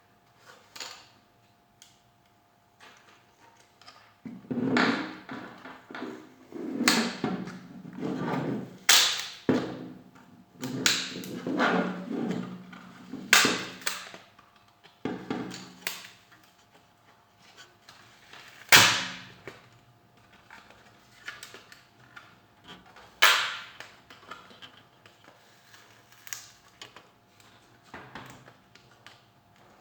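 Irregular knocks, clicks and scraping of tools and metal parts being handled during work on a microwave oven, with a few sharp clacks.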